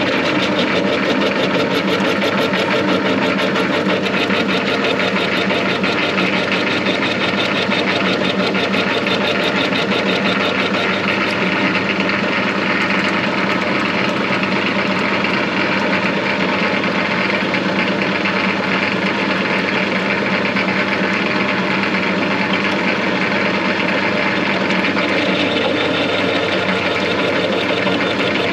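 Metal lathe taking a steady roughing cut along a bar with a carbide-insert turning tool under flood coolant: the lathe's drive running continuously with the noise of the cut.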